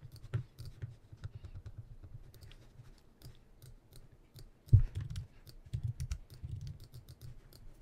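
Faint computer mouse clicks, many short ticks in irregular succession, with soft low bumps of desk handling; the loudest bump comes a little under five seconds in.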